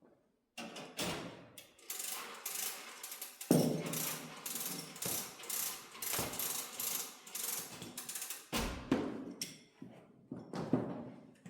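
Rapid, irregular mechanical clicking and rattling, like a ratchet, from car-wash equipment being handled or set up.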